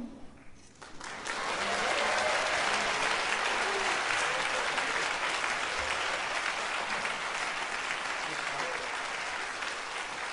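Audience applause breaking out about a second in, just after a jazz band's last chord, with some shouts from the crowd, slowly fading toward the end.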